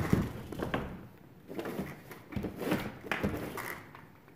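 Handling noise from the assembled sled being moved and touched: a thump at the start, then irregular rustling and scraping.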